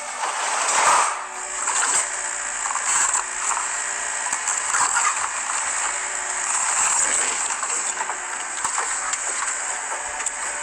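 Excavator demolishing a house: a continuous noisy crunching and clattering of breaking building material, with many short cracks.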